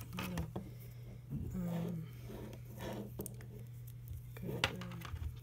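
Soft clicks and rustling of a coiled cable being handled as its twist tie is untwisted, over a low steady hum. A faint voice murmurs about a second and a half in.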